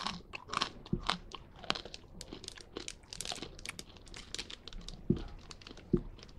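Plastic pouch of freeze-dried Now and Later candies crinkling as it is handled, with a few soft low thumps.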